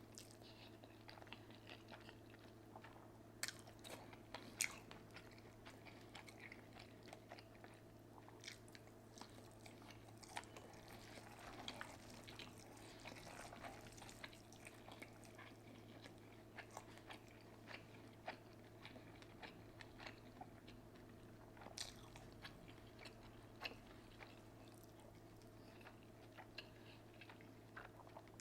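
Close-miked mouth sounds of a person eating seafood-boil ramen: faint chewing with scattered sharp clicks and crunches, a few louder ones about three to five seconds in, over a steady low hum.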